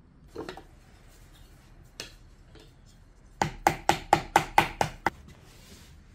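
A wooden tool beating on soft clay on a workbench: a quick run of about eight sharp knocks, about four a second, after a single softer knock and a click earlier on.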